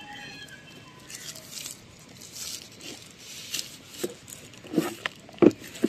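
Rustling and crinkling of a laptop's thin white protective sleeve as the laptop is slid out of it, with a few short knocks near the end, the last the loudest.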